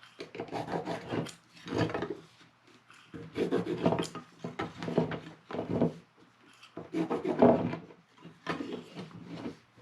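About seven short scraping strokes on a square wooden blank, with quiet gaps between them, as lines are marked across the blank to find its centre.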